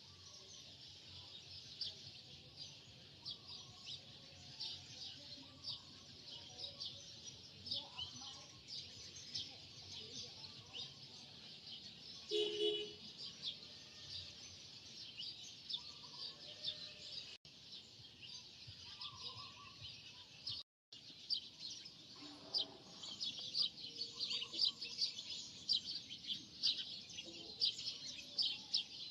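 Many small birds chirping in dense, rapid, overlapping calls throughout, cut off by two short dropouts near the middle.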